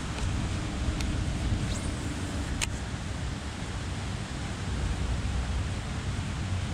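Wind buffeting an action camera's microphone: a steady low rumble with a hiss over it. A couple of faint sharp clicks come in the first half.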